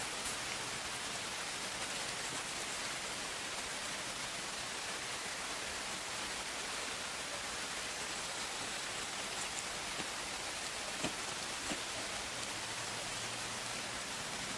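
Steady, even outdoor hiss with no distinct sound standing out, and a couple of faint ticks about eleven seconds in.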